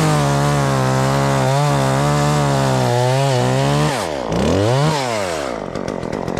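Gas chainsaw at full throttle cutting through a black walnut limb for about four seconds. It is then let off, revved once more and dropped back to a ticking idle.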